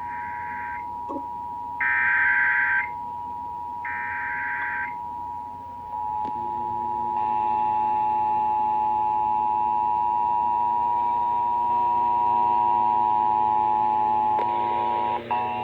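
Emergency Alert System attention signal: the steady two-tone alarm of 853 and 960 Hz. Three short, one-second bursts of SAME header data squeal over it in the first five seconds. About six and seven seconds in, more steady tones join and the sound gets louder, as other stations' alerts overlap.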